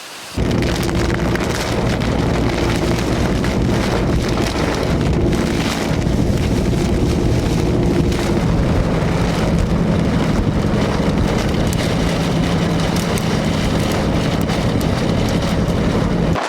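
Thunderstorm wind and rain, loud and steady with wind noise on the microphone, over a steady low hum. It starts abruptly a moment in.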